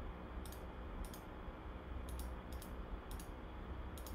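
Computer mouse clicks: about six short, sharp clicks at an irregular pace, some in quick pairs, as points are placed one by one to outline an area on screen. A low steady hum runs underneath.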